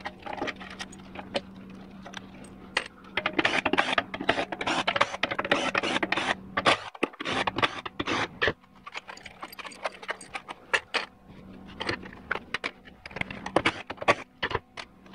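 Metal clinks, clicks and scrapes as bolts are taken out of a 4L60E transmission's aluminium valve body with a cordless driver. The clatter is busiest from about four to seven seconds in.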